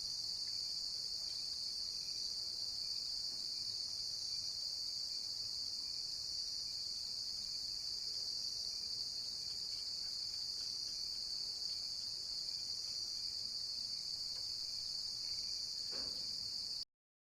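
Steady chorus of crickets, a continuous high-pitched trilling that cuts off suddenly near the end.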